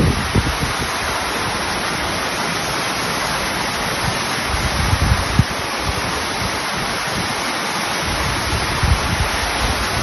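Water from a waterfall rushing over flat rock slabs and small cascades, a steady even rush. Low gusts of wind buffet the microphone now and then.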